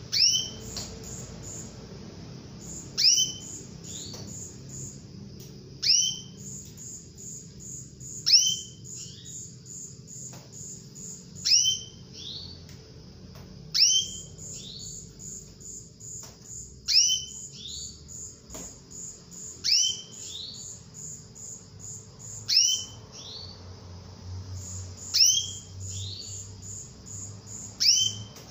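Female domestic canary calling for a male: a loud, quick upward-sweeping call repeated about every three seconds, with a fast run of faint high ticking notes between the calls.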